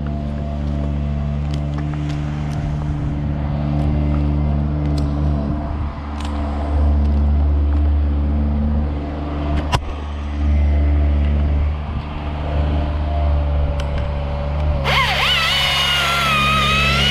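An engine running steadily at idle, with a couple of sharp knocks. About fifteen seconds in, music comes in over it.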